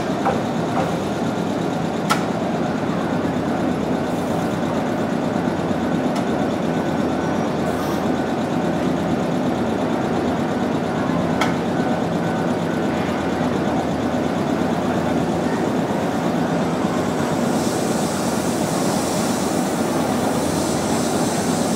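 Steady running hum of a Nankai commuter train standing at a station platform with its doors open, its on-board equipment running, with a few sharp clicks and a higher hiss coming in near the end.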